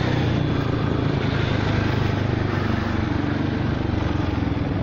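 Honda Forza 300 scooter's single-cylinder engine running steadily under way through a quiet aftermarket exhaust with a baffle fitted, mixed with wind and road noise.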